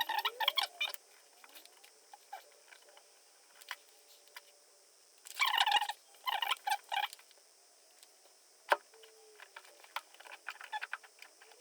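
Cabinet door being tugged against a freshly stuck adhesive flexi child safety lock, rattling in rapid clicking bursts about a second long at the start and again around the middle, with one sharp click later and a few small knocks.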